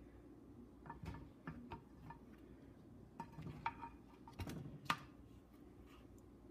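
Light, scattered clicks and taps of a plastic serving spoon and a flip-flop against a glass baking dish of casserole, with the sharpest knock about five seconds in, over a faint steady hum.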